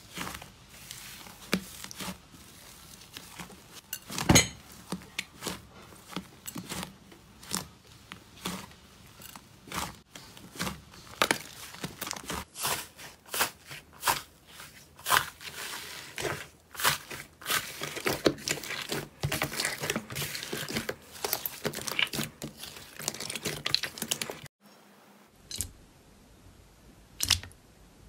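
Hands handling slime: squishing and tearing, then dense crackling and popping as fingers break the dried crust of an iceberg slime. About 24.5 s in it drops to a quieter background with a few soft squelches and clicks from a glossy slime being poked.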